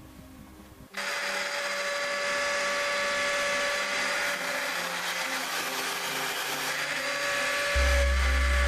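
A power tool's motor starts suddenly about a second in and runs steadily with a high whine. A deep low rumble joins near the end.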